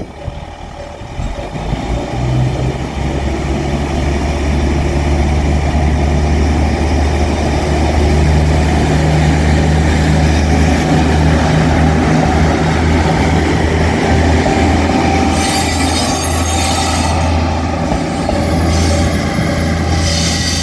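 JR Shikoku 9000-series rail transport car on the move, its engine giving a steady low drone over wheel-on-rail noise. Brief bursts of high-pitched wheel noise come about fifteen seconds in and again near the end.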